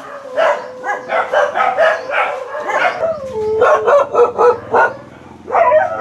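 Several dogs barking excitedly in quick, overlapping barks, with a long held howl running under the barks through the first half.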